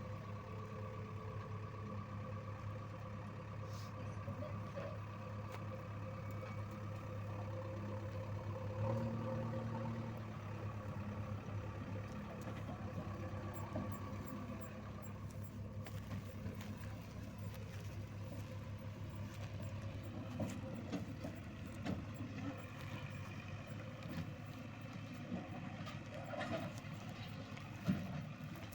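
JCB 3DX backhoe loader's diesel engine running steadily, revving up briefly about nine seconds in. Scattered knocks are heard later on.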